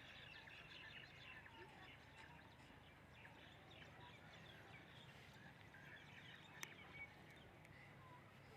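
Faint birds chirping in the background over a low steady hum, with one brief click about six and a half seconds in.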